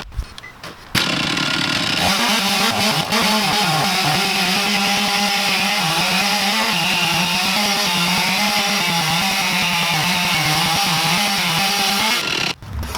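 Stihl MS 460 two-stroke chainsaw on an Alaskan chainsaw mill running at full throttle while ripping a slab from a log, its pitch wavering slightly as the chain loads in the cut. It comes up to full speed about a second in and drops away near the end.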